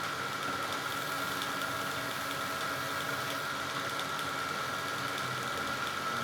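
Wood lathe motor running steadily with a constant whine.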